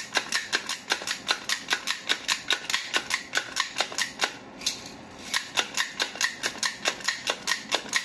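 Manual pepper mill being twisted to grind black peppercorns, giving a fast, even run of crisp clicks, about five or six a second, with a short break a little past four seconds in. The pepper is coming out only slowly and sparsely.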